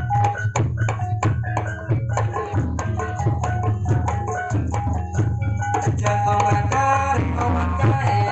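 Javanese jaranan gamelan accompaniment: fast kendang hand-drum strokes over held pitched notes and a steady low drone, loud and continuous, growing busier about six seconds in.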